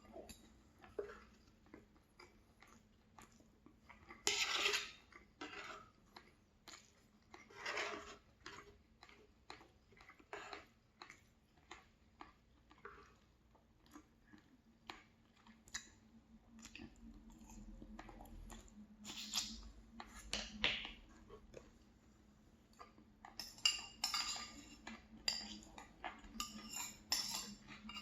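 Cutlery clinking and scraping on a plate, with chewing between the clinks. The clinks come thicker near the end.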